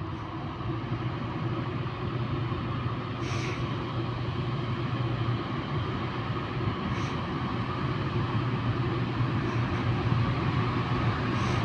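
EP20 electric locomotive pulling a double-deck passenger train away, a steady hum of the locomotive and rolling train growing slowly louder, with a few faint clicks.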